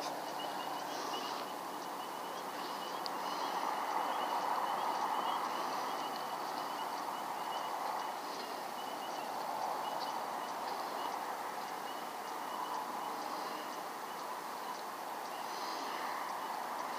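Outdoor night ambience: a steady background chorus with a faint, rapid high trill running through it.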